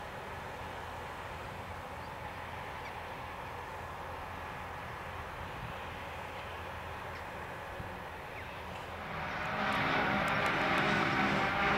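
Claas Jaguar self-propelled forage harvesters and their tractors running steadily at a distance; about nine seconds in the drone gets louder and closer, with a steady engine and cutter whine.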